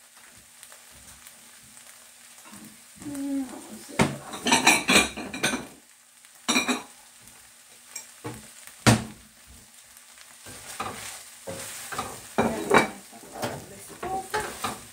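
Dishes and utensils clattering, with a cluster of sharp knocks about four to seven seconds in. From about ten seconds in, utensils scrape and tap against a Princess House Vida Sana stainless steel pot as chicken fajitas are served out onto a plate.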